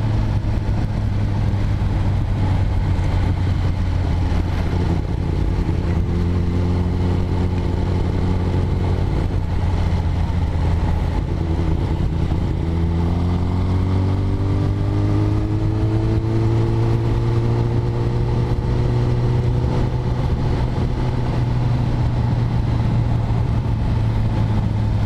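Kawasaki Ninja ZX-10R's inline-four engine running under way, its note steady for the first half, then rising gradually as the bike speeds up about halfway through, and holding the higher pitch to the end.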